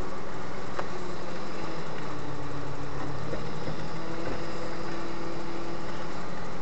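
Toyota 80 series Land Cruiser engine running steadily at low revs as the truck crawls up a steep hill-climb track.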